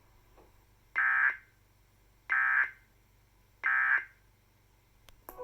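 Emergency Alert System end-of-message data bursts: three short, buzzy bursts of digital tones about 1.3 seconds apart, signalling that the alert message is over. A click comes near the end.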